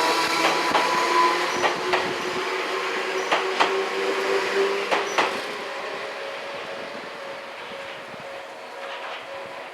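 Enoden (Enoshima Electric Railway) train passing over a level crossing, its wheels clacking over the rail joints under a whine that rises slowly in pitch. The clacks stop about five and a half seconds in, and the sound fades as the train moves away.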